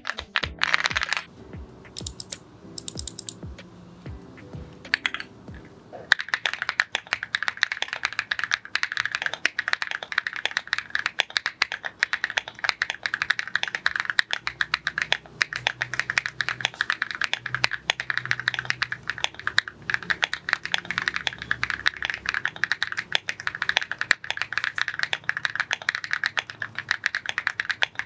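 Rainy75 mechanical keyboard fitted with KTT Baby White linear switches being typed on fast, a continuous stream of key clicks that starts about six seconds in. Before that, background music with a few scattered clicks.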